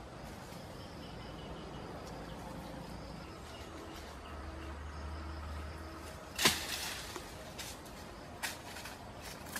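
Footsteps crunching through dry leaf litter, with one sharp, loud thump about two-thirds of the way through and a few more crunching steps near the end. Insects chirp faintly and steadily in the background.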